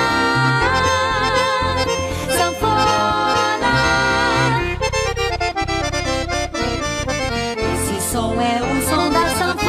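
Piano accordion playing a lively tune over a pulsing bass-and-chord accompaniment, with a stretch of fast repeated short notes about halfway through.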